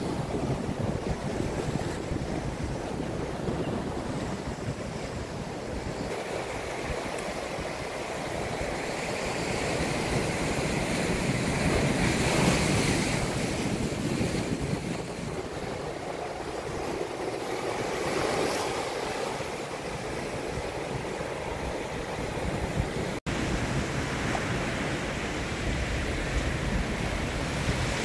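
Ocean surf washing in over a rocky shoreline, with wind buffeting the microphone. The wash swells louder about halfway through and cuts out for an instant near the end.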